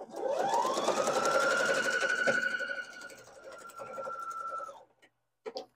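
Electric sewing machine stitching a seam. Its motor whine rises as it speeds up over the first second, then runs steadily with rapid needle strokes. It runs quieter after about three seconds and stops near the end.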